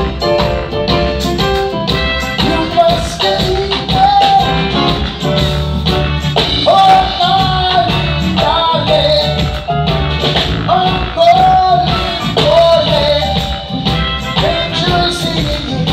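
Live reggae band playing, with drums, bass and keyboards, and a singer's voice gliding over the band from about six seconds in.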